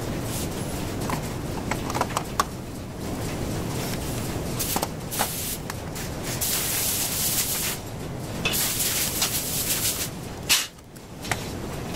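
Clicks and knocks of an automatic air hose reel being handled and taken apart, with several hissing rushes from about five seconds in, two of them over a second long, and a sharp knock near the end.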